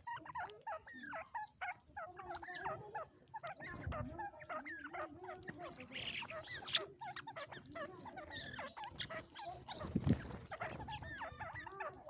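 Many birds calling together in a busy chatter of short calls that rise and fall in pitch, overlapping without pause, with a low thump about four seconds in and another about ten seconds in.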